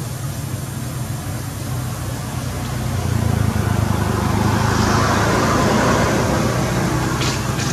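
Steady low rumble of road traffic that swells as a vehicle passes, loudest about three to six seconds in, then fades.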